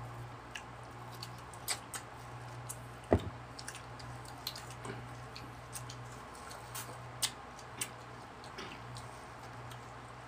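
Close-up sounds of people biting into and chewing ripe mango: scattered mouth smacks and sharp clicks, the loudest a little after three seconds in, over a steady low hum.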